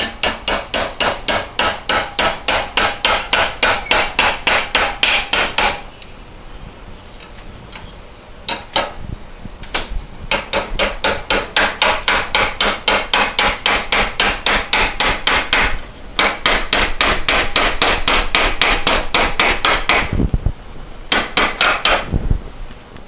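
A hammer striking metal parts of a Porsche 912 pedal cluster in long runs of quick blows, about four to five a second, each with a short metallic ring. The runs are broken by a pause of a few seconds about a quarter of the way in, then come back with a couple of short breaks.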